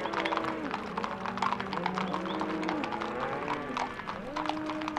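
A herd of cattle mooing, several long overlapping calls one after another, over the dense clatter of many hooves.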